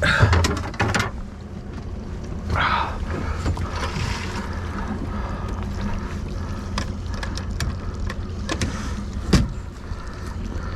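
Boat engine idling steadily in neutral, with knocks and clatter of handling on deck over it and a sharp click about nine seconds in.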